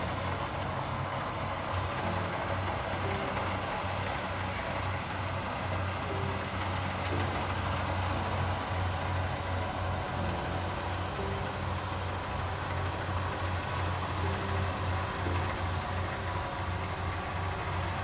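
Rice combine harvester's engine running steadily with a low drone as it reaps the field.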